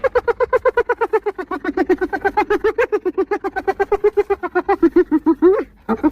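Spotted hyena giggling: a long, rapid run of short rising-and-falling notes, about nine a second. It breaks off about five and a half seconds in and starts again near the end.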